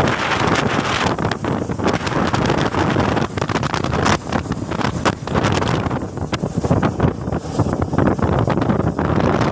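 Heavy, gusty wind buffeting on the microphone of a phone carried on a moving motorcycle, over the bike's engine and road noise.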